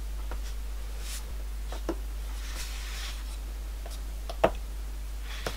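Small clicks and light scratching of steel tweezers on a miniature axle box cover as tiny pins are set into its holes, with one sharper click about four and a half seconds in. A low steady hum runs underneath.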